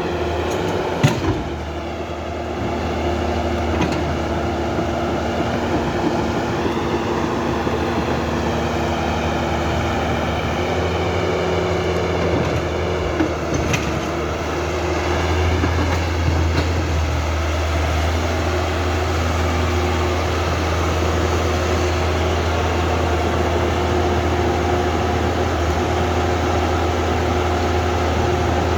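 Small electric motors and plastic gearboxes of a radio-controlled toy excavator and bulldozer whirring steadily, their whine drifting up and down in pitch as the machines work. Sharp clicks come about a second in and again near the middle.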